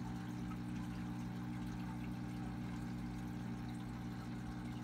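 Aquarium filter running: a steady hum with water trickling.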